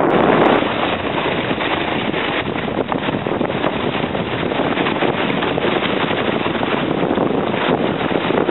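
Thermal spring water splashing and running over a travertine ledge: a steady rushing noise, with wind buffeting the microphone.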